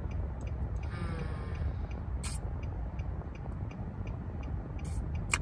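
Steady low road and engine rumble inside the cabin of a moving car, with faint regular ticking about three times a second and a couple of short sharp noises, one about two seconds in and one near the end.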